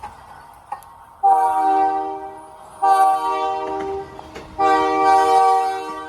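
Diesel locomotive air horn sounding three loud blasts, a chord of several tones, the third the longest, over the low rumble of a passing freight train.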